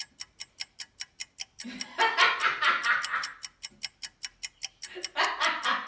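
Clock ticking at an even pace, about four ticks a second. A person's voice comes in twice over it, near the middle and near the end.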